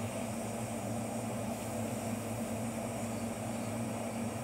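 Small handheld gas torch burning steadily while heating a silver-solder joint on an orthodontic band-and-loop wire: an even, unchanging hiss with a steady low hum underneath.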